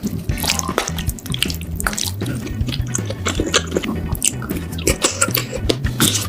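Close-miked wet eating sounds: chewing and slurping of chewy rice cakes in thick spicy sauce, many quick sticky clicks and smacks.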